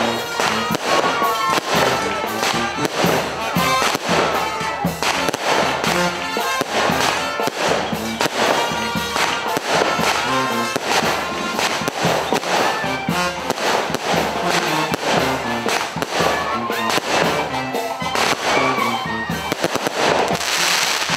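Aerial fireworks bursting overhead, with rapid crackling pops throughout. Music plays underneath.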